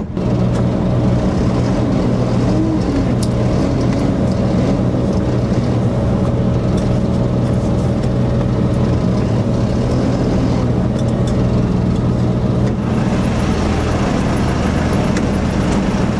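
Heavy truck's diesel engine running at a steady, even pitch.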